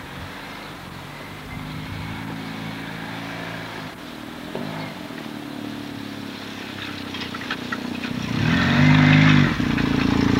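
Motorcycle engine running steadily at a distance, then getting louder as the bike comes closer, with a brief rise and fall in revs near the end before it settles back to a lower steady run.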